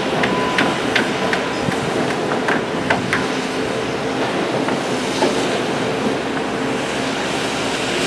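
Construction-site noise: a steady machine hum with scattered sharp knocks and clanks, most of them in the first few seconds.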